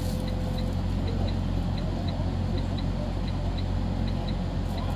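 Semi-truck diesel engine idling with a steady low hum, and a light ticking about three to four times a second over it.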